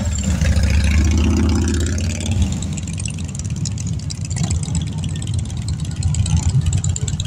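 Several cruiser motorcycles' engines running at parade pace, a steady low-pitched pulse that dips slightly in the middle and swells again near the end.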